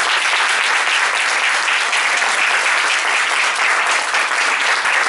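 Audience and panelists applauding: a steady, dense clapping of many hands.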